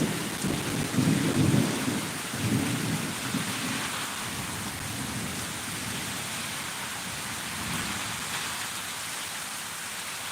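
Thunder rumbling low in two swells during the first few seconds, then dying away, over the steady hiss of rain.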